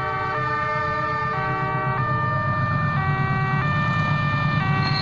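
A tune of held multi-note tones stepping to a new pitch about every half second to a second, over a steady low rumble of a train.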